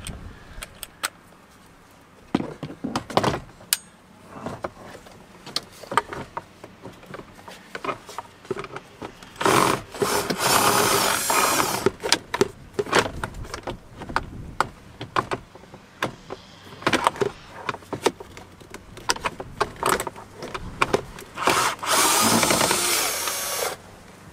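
Cordless drill with a 7 mm socket bit running in two bursts of about two seconds each, working at the bolts holding the instrument cluster, amid clicks and knocks of tools against plastic dash trim.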